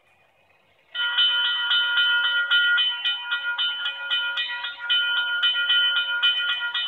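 Electronic grade-crossing bell of an HO model railroad crossing signal, played by a sound module, starts suddenly about a second in and rings rapidly at about five strikes a second, a bright, metallic ding repeated without pause. It has been set off by the crossing's photocell sensors detecting the approaching train.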